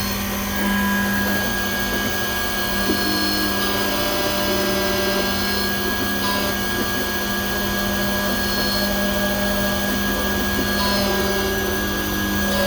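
Computerised code key-cutting machine running steadily as its cutter mills a Honda high-security (laser-style) key blank: a constant motor whine with a low hum and a higher tone, the middle tones shifting a little as the cut moves along the blade.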